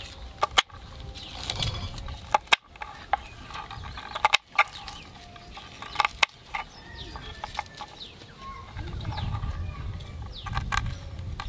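Kitchen knife chopping yard-long beans on a wooden chopping board: sharp chops at irregular intervals, several seconds apart, with a quick pair near the end.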